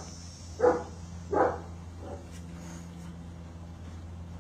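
A dog barking: two sharp barks in the first second and a half, then a fainter one, over a steady low hum.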